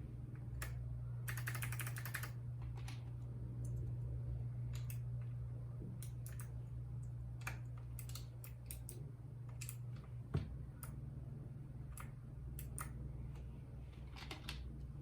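Keys of a RAKK Lam Ang Pro mechanical keyboard with Bronze switches being pressed: scattered key clicks, with a fast run of typing about a second in and another short burst near the end. A single louder thump comes a little past the middle, over a steady low hum.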